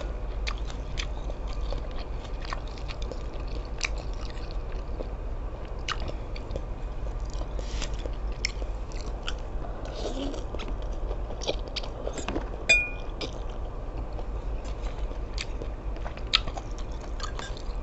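Close-up chewing and mouth smacking while eating seafood suki, with many short wet clicks at an irregular pace.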